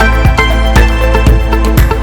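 Background music with a steady beat: sustained synth notes over a drum hit about twice a second.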